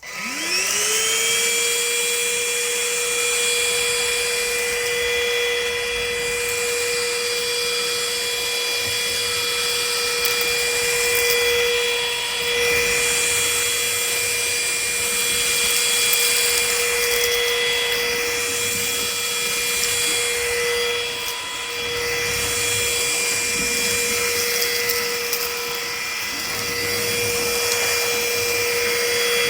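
Trucozie cordless stick vacuum switched on: its motor spins up to a steady high whine within about a second. It then runs with a loud rushing hiss of air that swells and fades.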